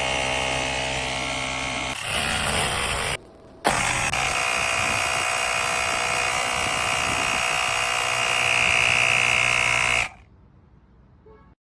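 Small electric compressor of a cordless portable tire inflator running with a steady buzzing hum. It breaks off briefly a few seconds in, runs again, then stops suddenly about ten seconds in.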